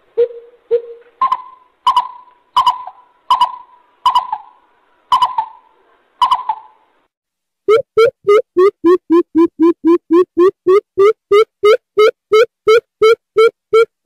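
Coucal calling: a spaced run of about nine short hooting notes, the first few low and the later ones higher. After a brief pause near the middle comes a fast, even series of deep hoots, about three a second.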